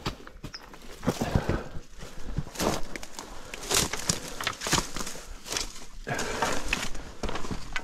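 Footsteps crunching and scuffing on loose dirt and rock, an uneven run of steps on rough canyon ground.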